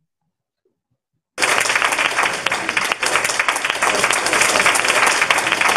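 Applause from many people clapping, starting abruptly about a second and a half in and continuing dense and steady.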